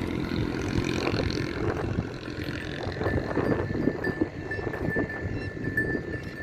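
Cattle grazing with a cowbell clanking. From about halfway in, a run of short, irregular crunching strokes is heard.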